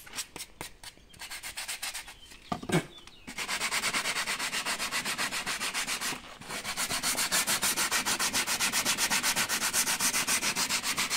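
A hand sanding block rubbed back and forth over the edge of a small piece of bare wood, in quick, even rasping strokes several times a second. The strokes start in earnest about three seconds in, with a short pause about six seconds in.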